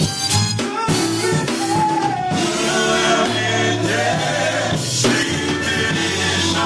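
Gospel song with voices singing a melody over drums, bass and guitar.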